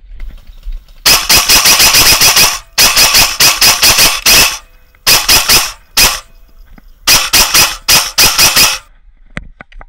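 Airsoft rifle firing full-auto in several bursts of rapid, evenly spaced shots, about ten a second, the longest lasting well over a second, with short pauses between bursts.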